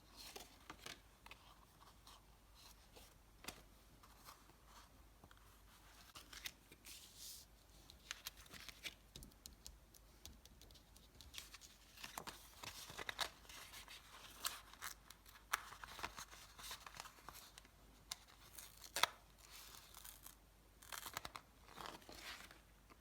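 Paper stickers being peeled from their backing sheet and stuck down: an irregular run of short sticky tearing crackles and rustles, with a few louder peels.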